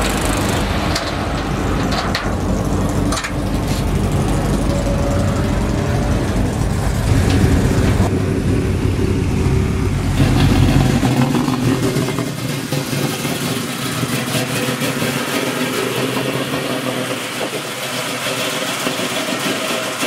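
Car engines idling and revving as cars roll slowly past. A heavy, deep exhaust rumble gives way about halfway through to a lighter, steadier engine sound.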